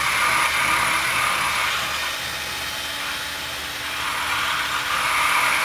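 Cordless drill with a rubber disc in its chuck running steadily as it drives a motorcycle wheel round on a milling machine's rotary table. A fixed tool bit takes a very light finishing skim off the out-of-true brake drum. The noise dips slightly in level midway and then picks up again.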